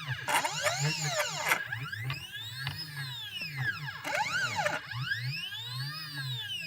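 CNC machine's stepper motors driving the axes back and forth, each move a whine that rises in pitch and falls again, repeating every second or two. Twice a harsh hissing grind sounds over the whine, the grinding noise heard with the drivers set to 0.3 Vref.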